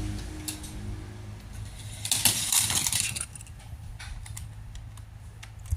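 A die-cast Hot Wheels toy car clattering on plastic track: scattered light clicks, with a burst of metallic rattling about two seconds in that lasts about a second.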